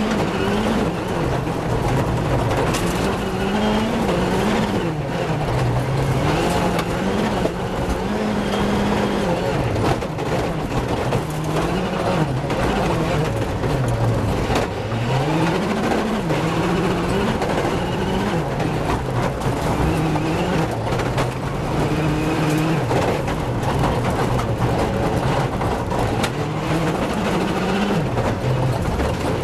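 Rally car engine heard from inside the cabin, revving up and dropping back over and over through gear changes and corners, over a steady rush of gravel and road noise.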